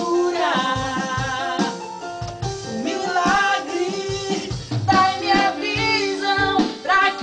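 Gospel worship song: sung melody with held, sliding notes over guitar and a drum beat.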